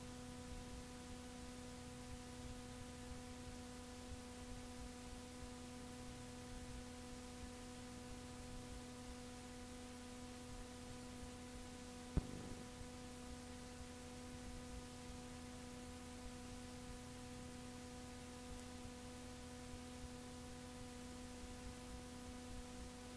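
Blank cassette tape playing back after the last song: a steady tape hiss with a low electrical hum under it. A single sharp click about halfway through.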